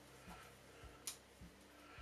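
Near silence with faint handling sounds: a few soft low knocks and one sharp click about a second in, from the plastic ball-jointed legs of a JOBY GorillaPod flexible tripod being bent.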